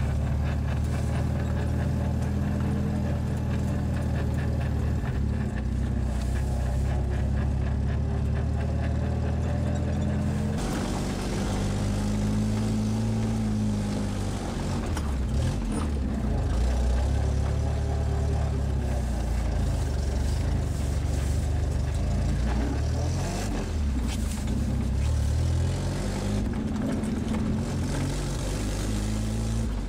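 1957 Škoda 440 Spartak's four-cylinder petrol engine, heard from inside the cabin while driving. It runs at a steady pitch at first, changes abruptly about ten seconds in, then rises and falls in pitch as the engine speed changes.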